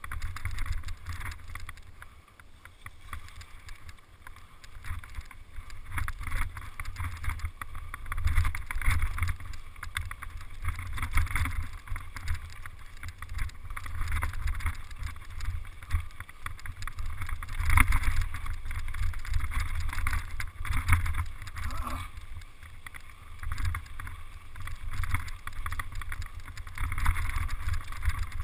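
Mountain bike clattering and rattling over a rough dirt trail at speed, with wind rumbling on the microphone. The loudness surges and dips with the bumps of the descent.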